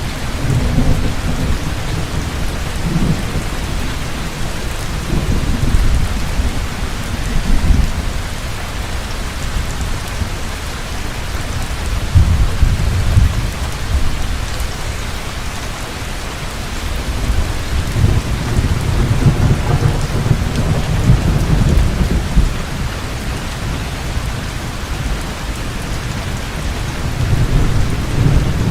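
Heavy rain falling steadily, with rolling thunder rumbling in several long swells.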